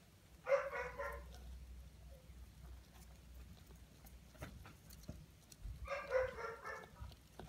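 A dog barking in the background, two short bouts about five seconds apart.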